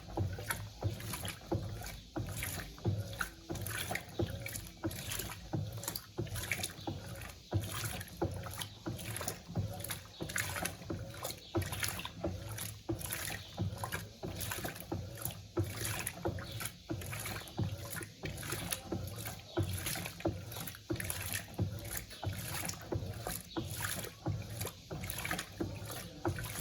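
Electrolux Turbo Compacta 7 kg (LTC07) top-loading washing machine agitating towels at the low water level during a pre-wash. The water sloshes and swishes in a steady back-and-forth rhythm, with the motor humming underneath.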